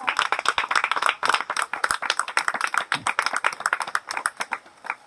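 A few people clapping by hand, the claps thinning out and stopping near the end.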